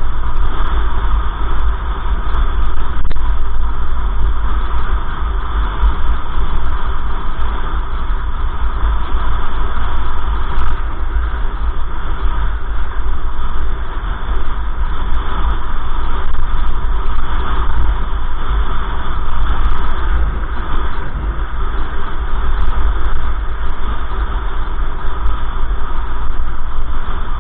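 Steady road and engine noise of a moving car heard from inside the cabin, with a heavy low rumble.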